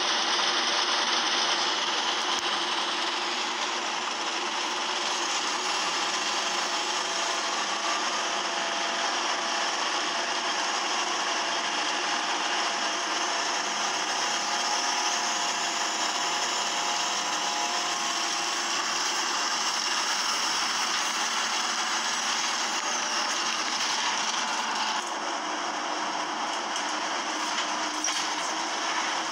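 Steady running noise inside a moving single-decker bus: engine and drivetrain drone with rattling from the body and fittings, and faint whines that rise and fall in pitch.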